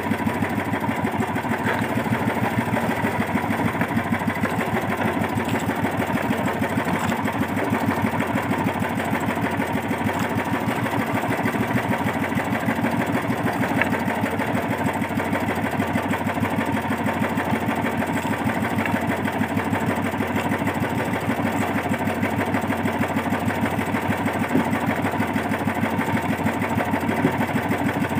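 Small engine of a motorized outrigger fishing boat running steadily at constant speed, a fast even chugging.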